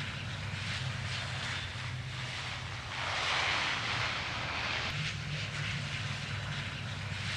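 Jet airliner on landing approach: a steady low engine hum under rushing air noise, which swells louder for about two seconds midway through.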